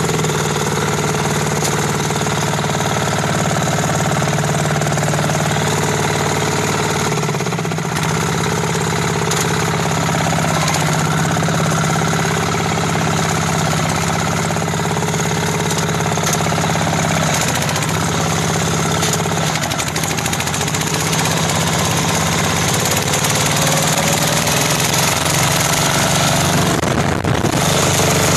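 Diesel engine of a riding mud mower running steadily as it drives along the road, its note coming out through an upright exhaust pipe with a small muffler. The engine eases off briefly about 8 seconds in and again about 20 seconds in.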